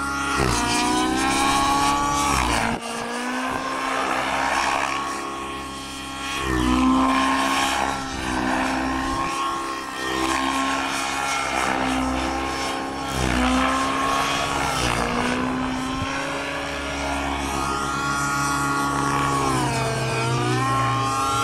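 Align T-Rex 700 radio-controlled helicopter flying aerobatics: the rotor and drivetrain whine dips in pitch and recovers every few seconds as the rotor is loaded through the manoeuvres. There is an abrupt break in the sound about three seconds in.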